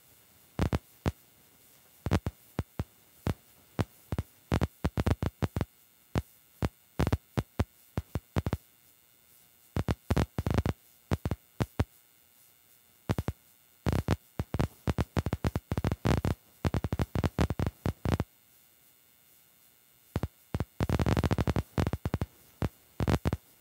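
Heavy rain striking a car's windshield and roof from inside the cabin, heard as irregular sharp taps and clicks with near quiet between them, coming thick and fast in a dense flurry about 21 seconds in.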